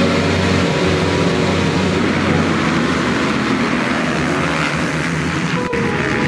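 A full gate of motocross dirt bikes revving hard and accelerating off the start line together, the pack passing close by. The sound changes abruptly near the end.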